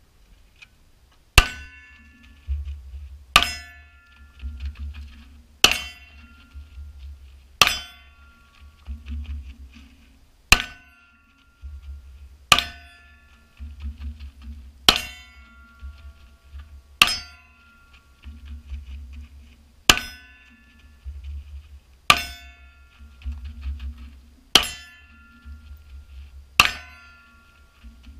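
Semi-automatic pistol fired single shots, one about every two seconds, twelve in all, each sharp crack with a short ringing tail. Between the shots there is a low rumble of running footsteps on gravel.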